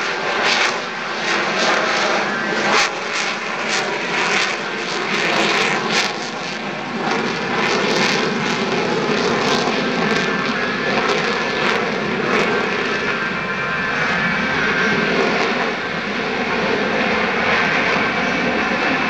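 F-22 Raptor's twin Pratt & Whitney F119 turbofan engines, a loud steady jet roar as the fighter flies nose-high at slow speed, picked up through a digital still camera's microphone. Sharp crackles run through the roar during the first six seconds or so.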